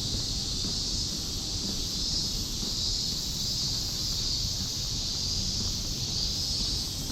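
Cicadas calling in chorus: a steady, shrill buzz that swells and fades slightly every second or so, over a low rumble.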